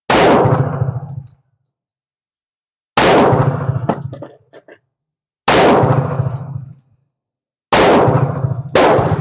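Five shots from a Tisas 1911 A1 .45 ACP pistol firing cast lead bullets, each shot trailing off over about a second. The first four come a couple of seconds apart; the last two are closer together.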